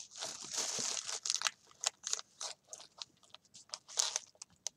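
Clear plastic packets of stamp sets crinkling as they are handled: a dense stretch of crackling in the first second and a half, then scattered short crinkles, the loudest about four seconds in.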